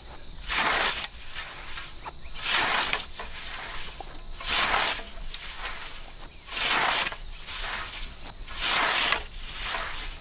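Hand scythe swishing through grass in five even strokes, about one every two seconds, over a constant high-pitched insect drone.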